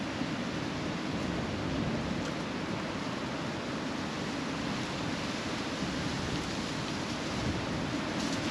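Steady, even rushing background noise of an outdoor city ambience, with no distinct sounds standing out.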